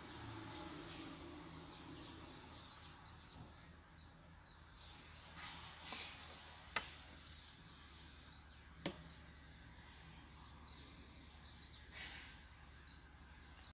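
Faint room noise with a low hum, broken by a few sharp clicks, the two loudest about seven and nine seconds in, as metal jar lids are handled and set down on a wooden table.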